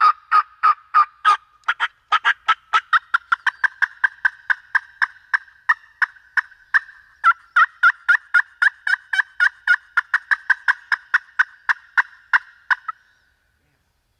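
A long, even run of turkey yelps, about three a second, that stops abruptly near the end.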